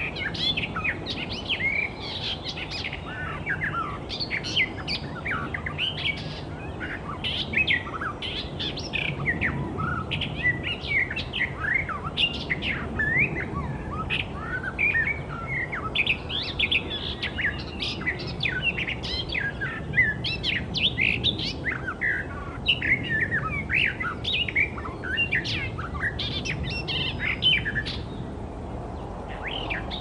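Icterine warbler singing: a rapid, unbroken stream of varied chattering and whistled notes with quick up-and-down glides, over a faint steady background hiss.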